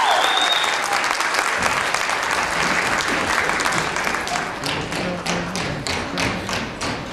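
The song ends in the first second, followed by audience applause. From about four seconds in, metal-plated tap shoes click in quick rhythmic strikes on the stage floor.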